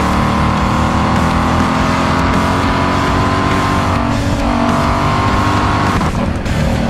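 Ford Mustang Shelby V8 cruising at highway speed: a steady engine drone whose pitch sags slowly, over tyre and wind noise.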